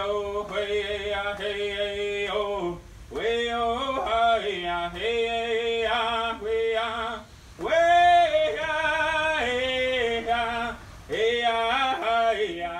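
A voice singing in long held notes, about four phrases with short breaks between them, laid over the pictures as a soundtrack.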